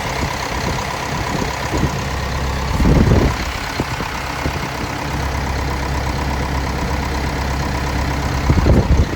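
Kobelco SK210LC-9 excavator's Hino diesel engine idling steadily, heard close to the open engine bay. There are two short, louder low bumps, one about three seconds in and one near the end.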